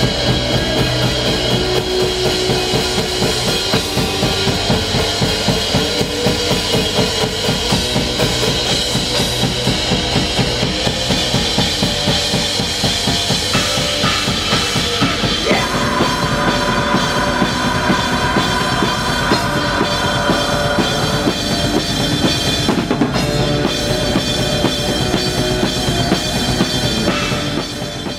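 Post-black-metal drumming on a full kit: fast blast beats on bass drum, snare and cymbals, played along with the band's recorded song, its sustained guitar lines underneath. It fades out near the end.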